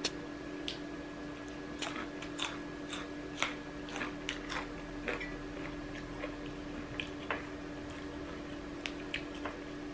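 A person biting and chewing food, with scattered small clicks and taps throughout over a steady faint hum.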